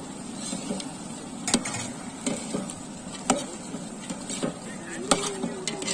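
A long steel ladle stirring chicken pieces and masala powder in a large metal cooking pot, knocking sharply against the pot three times, with a steady sizzle of the meat cooking underneath.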